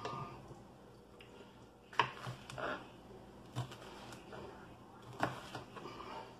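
Kitchen knife slicing a red bell pepper on a plastic cutting board: a handful of irregular taps and short cuts of the blade against the board, the sharpest about two seconds in.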